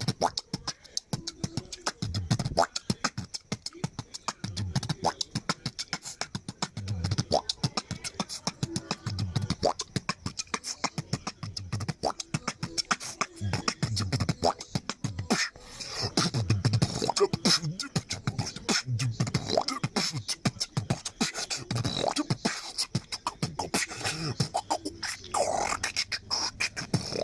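Human beatboxing: a fast, steady stream of mouth-made hi-hat and snare clicks over deep kick-drum thumps that recur about every two seconds, with a held low hum near the end.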